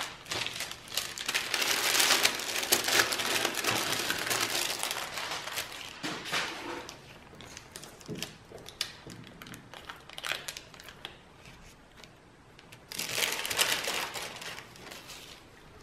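Paper and thin plastic wrapping crinkling as a packet of rubber gloves is opened and handled. There is a busy stretch of rustling over the first several seconds, softer rustles after it, and another burst near the end.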